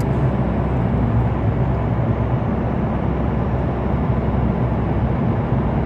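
Steady road and engine noise of a moving van, heard from inside the cab: an even rumble with a low drone underneath.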